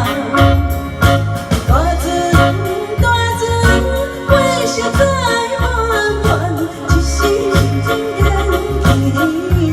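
Taiwanese Hokkien pop song playing, with a steady bass beat about twice a second under a gliding lead melody.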